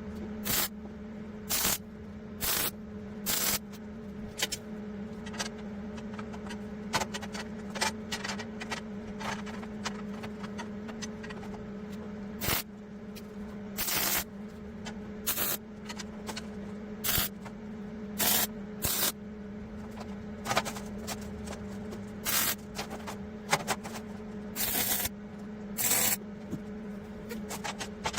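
Arc welder tack-welding rebar into a cage: about two dozen short bursts of arc, each under a second and irregularly spaced, some in quick pairs, over the welding machine's steady hum.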